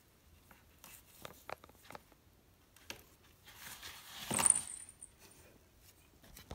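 Rustling and scratching against a corrugated cardboard scratcher as a hand rubs a squirming kitten, with scattered small clicks and a louder scrape about four seconds in.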